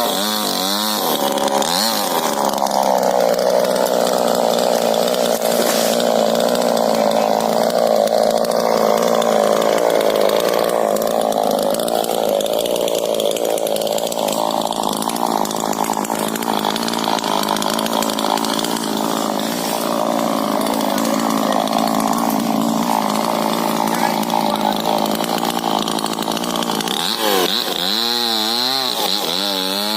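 Two-stroke chainsaw cutting rubber-tree wood. The engine revs up and down at the start. From about two seconds in it holds a steadier, lower pitch under load in the cut. Near the end it revs up and down again as it frees up.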